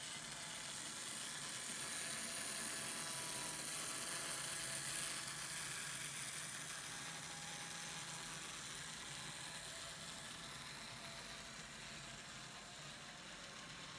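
N scale model train running past: the Intermountain and Kato Great Northern F7 locomotive models and their freight cars make a steady whir and hiss of small motors and wheels on the rails. The locomotives are DC-run with no sound decoder, so only the mechanism itself is heard. It is loudest about four to five seconds in as the locomotives pass close, then slowly fades as the freight cars roll by.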